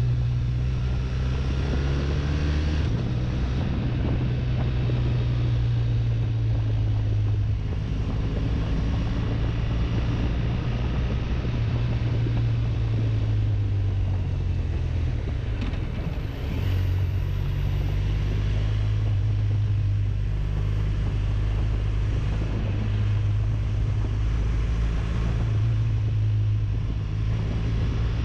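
BMW touring motorcycle engine running under way, its low note shifting in pitch a few times, with a brief dip about halfway through. Wind noise on the microphone rushes over it.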